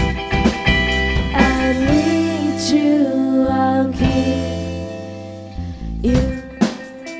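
Live band music with guitar and drums. About two seconds in, the drums and bass drop out and the chords ring on and fade, then the drums come back in near the end.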